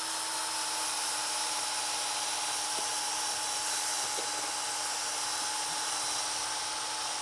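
Cordless drill spinning a 120-grit sanding disc against a turned wooden vessel, sanding back black aniline dye: a steady whine with the hiss of the abrasive on the wood.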